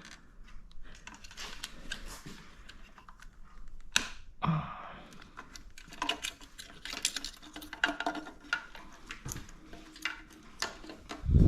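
Irregular small clicks and rattles from hands working the wire retaining clip and bulb in a motorcycle headlight housing, with one sharper click about four seconds in.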